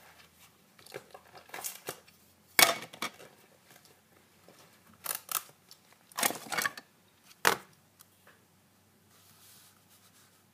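Desk handling sounds as a plastic pocket calculator is fetched and brought over a paper worksheet: a few sharp knocks and rustles, the loudest about two and a half seconds in and a cluster of them in the middle.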